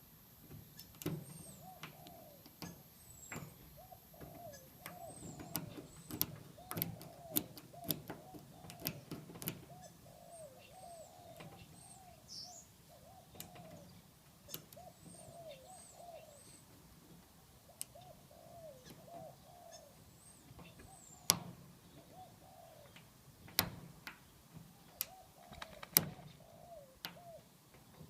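Lock picks working a padlock: scattered sharp metallic clicks and taps, irregular, a few louder ones in the second half. Birds call steadily in the background, with a run of short repeated arching notes and small high chirps.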